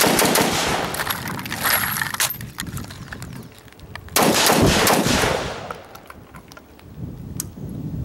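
Two shots from a SIG Sauer 556xi rifle in 5.56, one at the start and another about four seconds later, each trailing off in a fading echo, with a few faint clicks in between.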